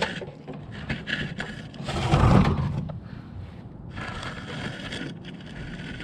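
Scraping and rubbing handling sounds as a microwave oven's door is opened, with one dull low thud about two seconds in.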